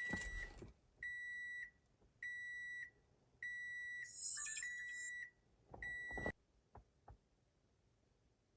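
Electronic chime in the car's cabin beeping about five times, each a steady high tone lasting roughly half a second, with one longer beep about halfway through. The car has just been powered up to test a newly installed head unit. Two faint clicks follow a little after the beeps stop.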